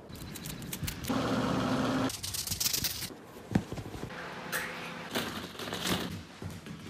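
A rapid string of one-second home-video snippets of a Shetland sheepdog puppy, the sound changing abruptly about every second: clicks and taps, bursts of rustling, and near the end plastic ball-pit balls rattling as the puppy moves through them.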